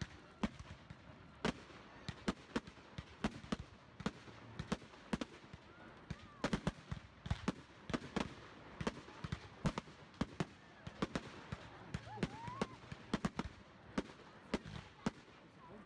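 Fireworks display: aerial shells bursting in a fast, irregular string of sharp bangs and crackles, several a second without a break.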